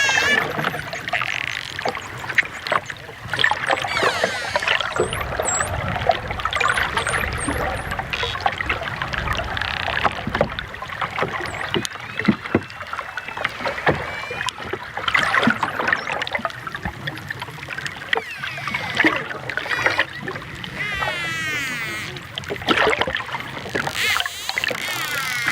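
Dolphins whistling and clicking: many overlapping whistles that rise and fall in pitch, over rapid clicks and a steady rushing background.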